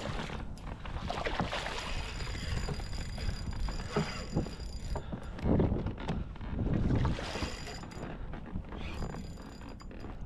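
A hooked redfish splashing and thrashing at the surface beside a kayak while it is reeled in, with irregular splashes and knocks that are loudest about five and a half and seven seconds in.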